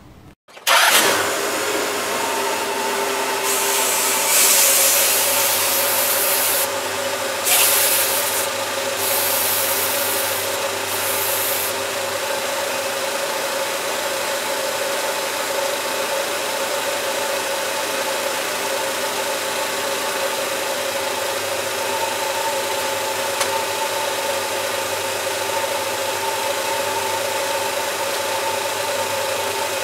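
Car engine idling steadily during a cooling-system flush, with a constant hum. Bursts of hiss come and go during the first ten seconds or so.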